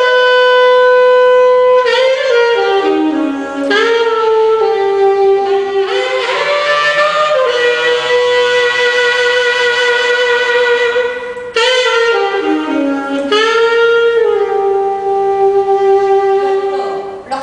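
Solo saxophone playing a slow melody of long held notes, some sliding up or down into the next pitch, with a brief pause between phrases about two-thirds of the way through.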